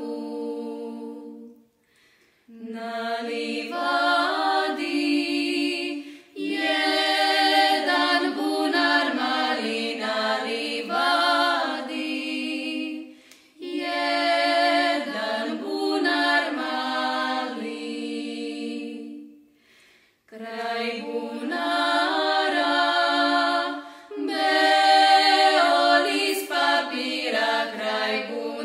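A women's vocal group singing a traditional Banat folk song unaccompanied, several voices together, in long held phrases. Short breaks between phrases, the clearest about two seconds in and two more about halfway and two-thirds through.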